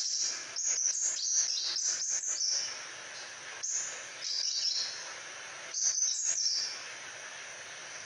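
Crimson sunbird singing: bursts of high, quick twittering phrases with short pauses between them, quieting about two-thirds of the way through.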